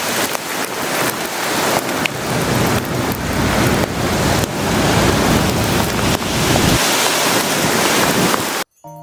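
Heavy downpour with gusting wind buffeting the microphone, a loud, dense hiss full of small rain ticks. It cuts off abruptly near the end.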